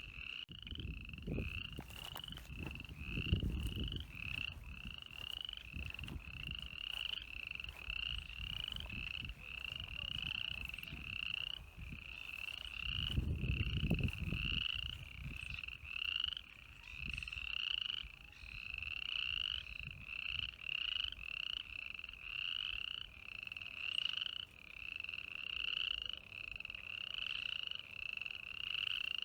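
A frog calling over and over, about two short calls a second, each a brief note that rises at its end, without a break. A low rumble swells twice, once in the first few seconds and again about halfway through.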